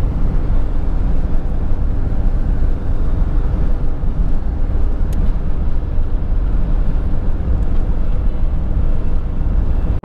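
Vehicle driving at highway speed, heard from the vehicle itself: a steady, loud low rumble of engine, tyre and wind noise.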